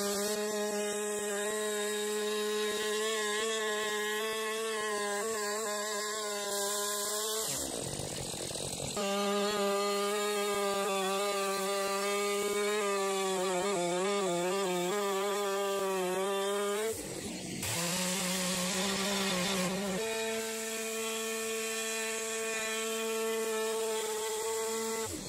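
Stihl chainsaw in a chainsaw mill running steadily while ripping lengthwise through a log. Its pitch wavers for a couple of seconds around the middle, and the sound shifts abruptly twice.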